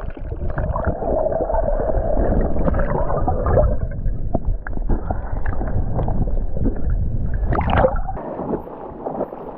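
Muffled gurgling and rushing of sea water heard from under the surface as a swimmer moves through it, with many small clicks and bubbles; it drops away near the end.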